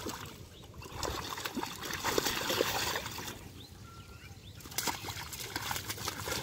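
Water and mud splashing and sloshing as hands grope through a shallow muddy pool full of fish, in two spells with a quieter pause around the middle. A bird chirps briefly in the pause.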